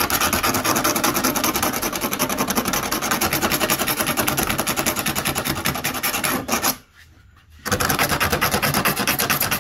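A razor-blade scraper rasps in quick back-and-forth strokes along the cut edge of a polyethylene kayak hull, shaving off the bead of plastic melted by the hot knife. The scraping stops briefly about seven seconds in, then resumes.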